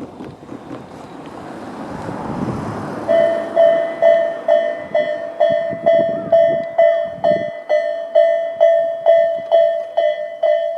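A Tobu Railway level crossing's electronic warning bell, the Tobu 'sound A' tone, starts about three seconds in and rings on at a steady two strokes a second, signalling that a train is approaching. Before it, a vehicle rumbles past and fades.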